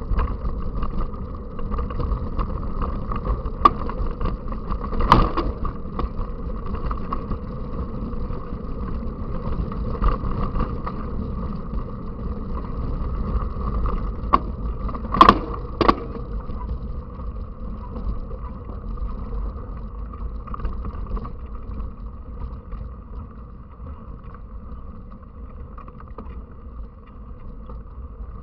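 Steady rumbling wind noise over a mountain bike rider's camera microphone while riding, with a few sharp knocks from the bike and mount, the loudest about five seconds in and about fifteen seconds in.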